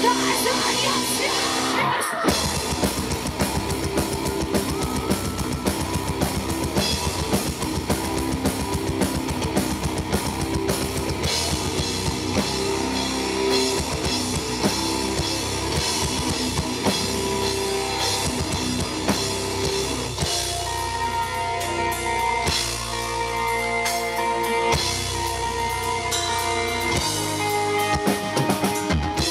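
Live metal band playing: drum kit, electric guitar and bass guitar, with a short break about two seconds in before the drums come back in fast.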